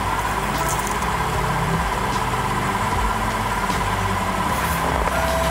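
Pickup truck engine idling steadily, with a few faint metallic clinks as the tyre chains are handled at the wheel.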